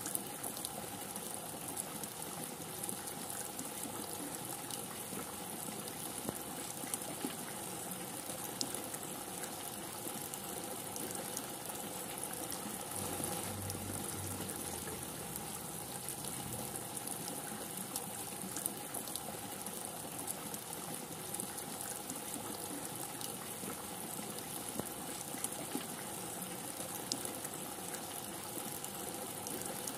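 Rain falling steadily, an even hiss with scattered sharp ticks of drops. A brief low rumble comes about 13 seconds in.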